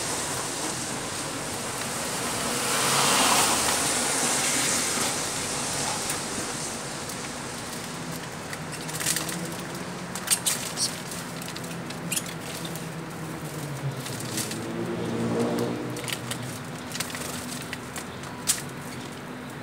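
Small cage birds such as canaries at a seed tray: from about eight seconds on, scattered sharp clicks and taps from their feeding and hopping, over a steady background rumble like road traffic that swells about three seconds in.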